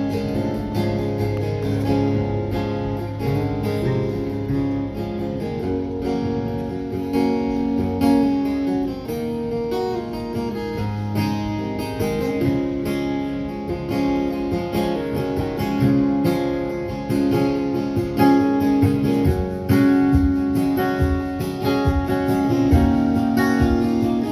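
Live country band playing the instrumental intro of a song, led by strummed acoustic guitar over sustained notes, before the vocals come in.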